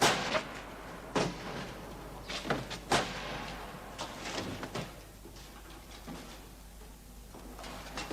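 A series of sharp knocks and clunks at irregular intervals, bunched in the first five seconds and then thinning out.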